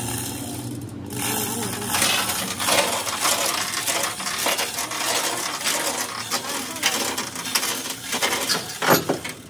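Heavy steel lifting chains rattling and clinking against each other and against a steel truck axle housing, in quick irregular jingles, with a louder clank near the end.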